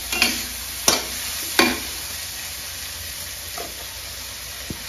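Steady sizzling hiss of chillies and vegetables frying in a wok, with a few sharp metal clacks in the first two seconds and fainter ones later as tongs reach into the steamer pot.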